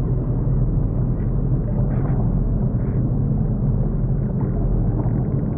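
Jet ski engine running at low speed, a steady low hum, with wind and water noise on the microphone.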